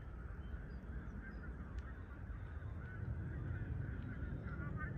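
Twin-engine jet airliner passing overhead: a steady low rumble with a wavering engine whine above it.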